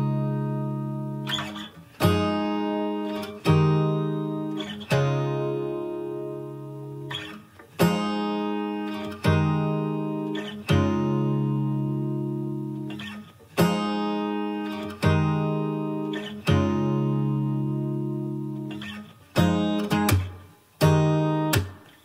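Background music: an acoustic guitar strumming chords, struck every second or two, each chord ringing out and fading.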